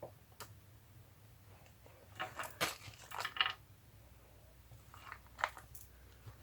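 Paper rustling and crinkling in short bursts, with light taps, as paper strips and pieces are handled, in three bouts about half a second in, from about two seconds in, and around five seconds in.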